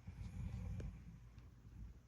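A sleeper's slow, heavy breathing between snores: a low, rough breath in the first second that then tails off quietly.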